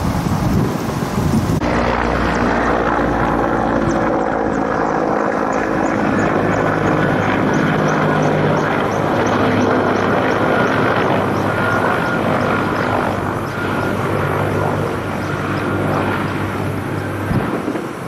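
Firefighting helicopter carrying a water bucket, flying over a forest fire: a steady drone of engine and rotor with several steady low tones in it.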